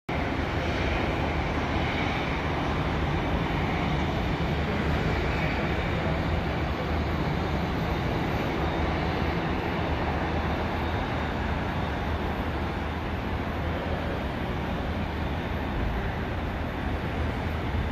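Steady rumble of a distant twin-turboprop airliner, the Beech C-99 with its two Pratt & Whitney PT6A engines, at takeoff power on its takeoff roll.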